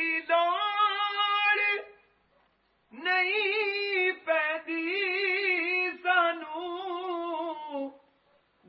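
A single high voice singing unaccompanied, a wavering, ornamented melody held on long notes. It comes in two phrases: a short one, then a pause of about a second, then a longer one.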